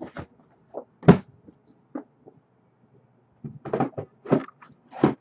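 Sharp taps and knocks of trading cards and their packaging being handled on a table: a single loud knock about a second in, then a cluster of quick knocks near the end.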